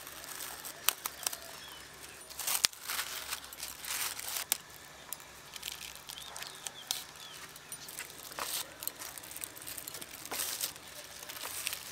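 Thin polythene sheet crinkling and rustling as it is handled and stretched over small paper cups, with scattered light clicks and taps.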